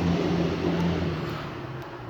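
Vehicle engine running steadily, its sound fading away from about a second in.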